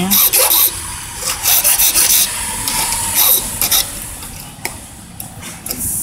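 Hand file rasping across a tubular lock key, deepening the cut for one pin. Several quick groups of scraping strokes come in the first four seconds, then lighter scraping.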